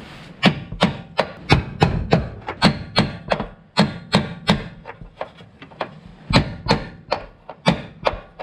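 Repeated hammer blows, about two to three a second, knocking a stuck fuel pump lock ring around to loosen it.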